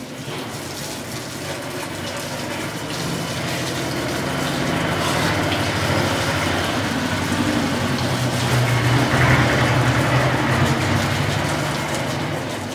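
Pressure washer running: a steady low motor hum under the hiss of the water jet spraying over a motorcycle. It grows louder toward the middle and eases off near the end.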